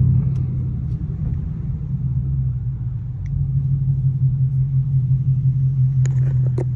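Ford Mustang GT's V8 engine rumbling low and steady, heard from inside the cabin while the car rolls slowly in traffic; it gets a little louder about three seconds in. A few sharp clicks sound near the end.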